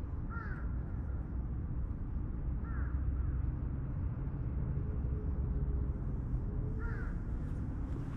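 A crow cawing three times, spaced a few seconds apart, over a steady low rumble.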